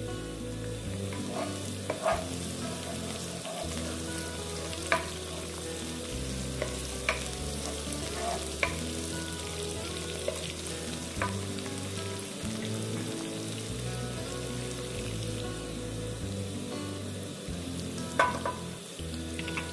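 Sliced green chillies and chopped aromatics sizzling in hot oil in a nonstick wok, stirred with a wooden spatula that knocks against the pan now and then.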